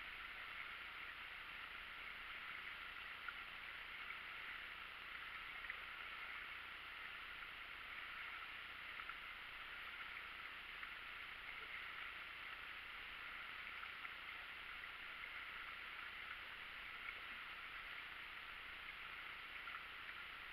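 Faint, steady rushing of river water around an inflatable rubber raft drifting on a calm stretch of river, with a few small knocks.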